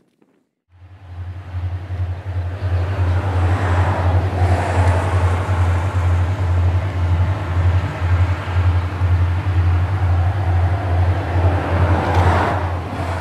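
Diesel locomotives CLF3, 602, S311 and CLP12 heading a grain train, their engines giving a deep, pulsing throb as they approach. The sound cuts in about a second in and grows louder over the next two seconds.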